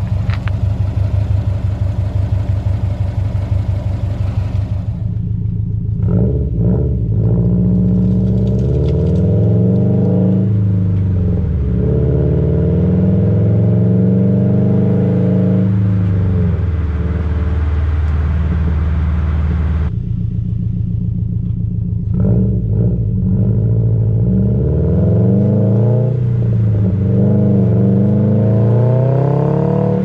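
Subaru WRX STI's turbocharged flat-four engine through a Remark axle-back exhaust, heard right at the tailpipes: first idling with an even pulsing note, then, after a cut, pulling through the gears with the pitch climbing and dropping at each shift, holding a steady cruise for a few seconds, and pulling up through the gears again.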